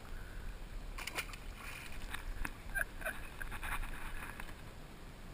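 A cluster of knocks and rattles from gear being handled in a small jon boat, over a low steady hum.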